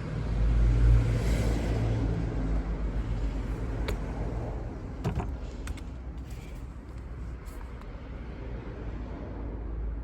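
Electric polisher running with a steady motor hum while it buffs a car headlight lens with polish. The hum is loudest in the first couple of seconds, and there are a few sharp clicks around the middle.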